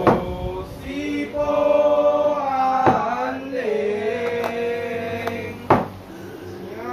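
A man's voice chanting in long held, slowly gliding notes. Three sharp, loud knocks cut through it: one right at the start, one about three seconds in and one near the end.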